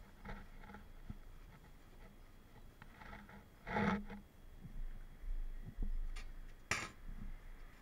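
Paper towel rustling and crumpling in the hands while wiping out a plastic measuring cup, in several short bursts, the loudest about four seconds in, with a sharp crackle near the end.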